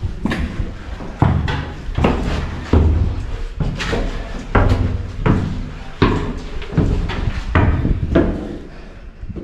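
Footsteps climbing steep stone stairs in a narrow plastered stairwell, a heavy thud about every 0.7 s.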